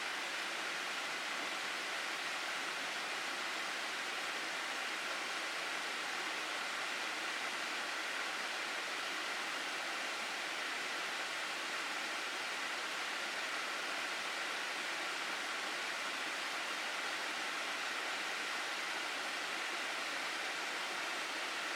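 Rushing water of a mountain stream in a gorge, a steady, even rush with no change.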